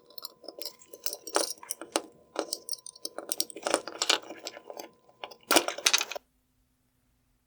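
Irregular light plastic clicks and rattles from a headlight's wire harness connector being unclipped on both sides and worked loose. The sound cuts off abruptly about six seconds in.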